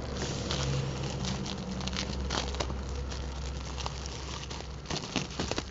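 Plastic bubble wrap crinkling and rustling as it is cut with scissors, with scattered small clicks and a cluster of sharper clicks near the end.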